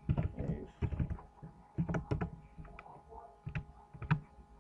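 Typing on a computer keyboard: irregular, separate key clicks, a few at a time with short gaps between them.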